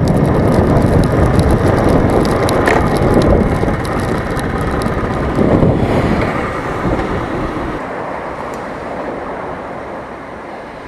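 Wind and rain noise rushing and crackling over an action camera in a waterproof case on a moving motorcycle, dying away steadily as the bike slows to a stop.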